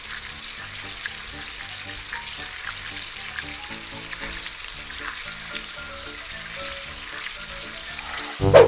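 Quiet background music of low, stepping notes under a steady crackling hiss. Near the end a sudden loud sound cuts in as a brighter music cue begins.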